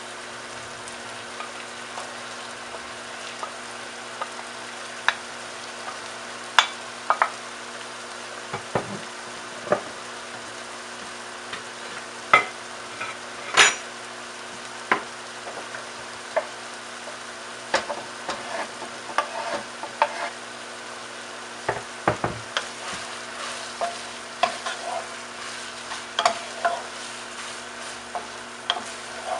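Ground beef sizzling in a pot, with a wooden spoon knocking and scraping against the pan as it is stirred. A louder clatter comes about halfway through, when diced onion is tipped in, and the knocks grow more frequent in the second half as the onion is stirred into the meat.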